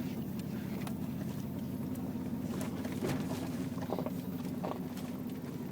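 Range Rover P38 driving off-road, heard from inside the cabin: a steady low engine and road drone with a few short knocks scattered through it.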